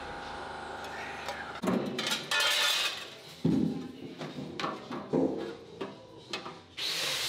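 Workshop clatter: a handful of separate knocks and clunks of metal and parts being handled, then a hiss of air that starts near the end.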